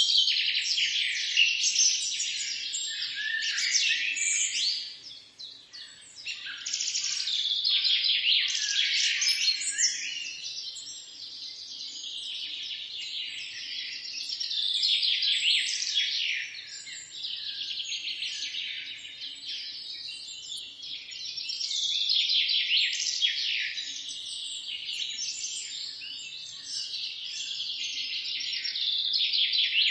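A chorus of songbirds, many singing over one another in a dense, continuous stream of high chirps and trills that swells and thins, thinning briefly about five seconds in.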